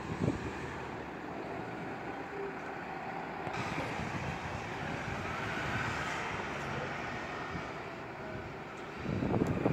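Prevost X3-45 coach's Detroit Diesel Series 60 straight-six diesel engine running steadily as the bus pulls away, its sound brightening about three and a half seconds in. Wind buffets the microphone near the end.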